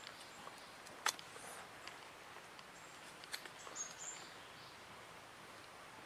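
Quiet forest ambience with a faint hiss, one sharp click about a second in and a few fainter clicks later, and brief high chirps around four seconds in.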